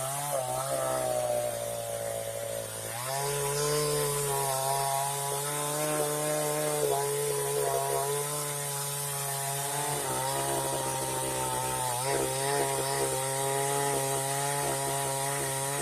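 Chainsaw running steadily while cutting wood. Its engine pitch sags about two seconds in, then picks up again a second later and holds with small dips.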